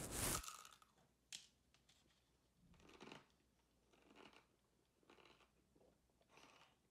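Faint chewing of a mouthful of dough-crusted cheeseburger, soft crunches about once a second, in otherwise near silence.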